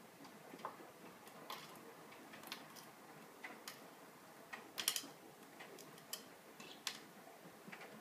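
AEG Lavamat L88489FL front-loading washing machine tumbling its drum: scattered light clicks and taps at irregular intervals, with a sharper cluster about five seconds in, over a faint steady background.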